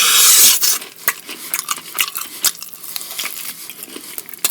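Close-miked mukbang eating: a loud slurp, followed by wet, clicking chewing and mouth smacks.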